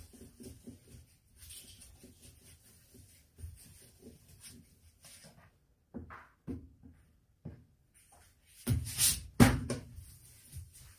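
Hands rolling pieces of noodle dough into thin ropes on a wooden board: soft, irregular rubbing and light taps of dough and palms on the wood. A few knocks come later, then two loud thumps close together about nine seconds in.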